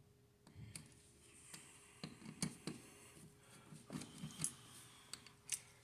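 Faint, irregular clicks and light knocks of a screwdriver and a wall receptacle being handled as the outlet is unscrewed and worked out of its electrical box.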